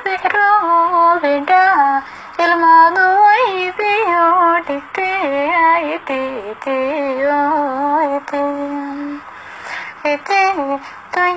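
A high-pitched voice singing a slow, ornamented melody with long held notes that waver and bend between pitches, pausing briefly about two seconds in and again near the end.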